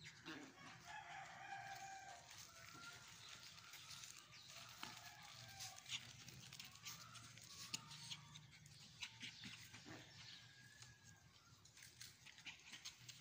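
Faint animal calls: several short calls that bend in pitch in the first few seconds and another about ten seconds in, with scattered light clicks.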